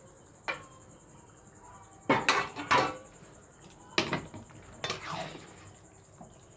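Steel cooking utensils clanking against a steel kadai as arrowroot slurry is tipped from a steel bowl into the gravy and a spatula works the pan: a light click, then a handful of sharp metal strikes spread over several seconds, the last ringing briefly.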